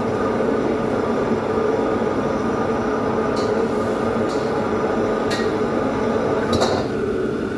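Steady roar of a commercial wok range's gas burners and the extractor hood fan above it. A few light metal clinks of woks and utensils come through in the second half.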